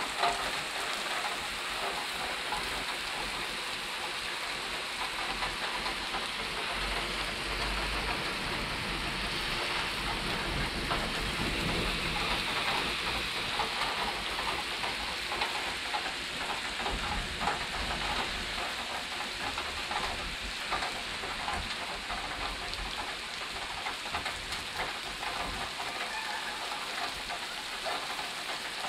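Heavy rain pouring steadily in a thunderstorm, with dense pattering and splashing on wet ground and surfaces. A low rumble builds in through the middle and fades again near the end.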